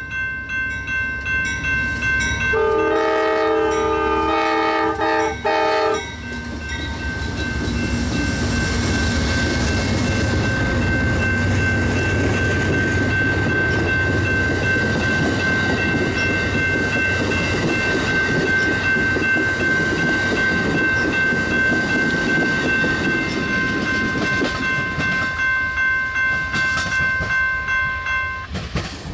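Amtrak passenger train led by a P42DC locomotive passing close by. A horn blast ends at the very start and a second multi-note blast sounds from about three to six seconds in. Then the train goes by with a rumble of wheels on rail and a clickety-clack, and a steady high tone over it that stops near the end.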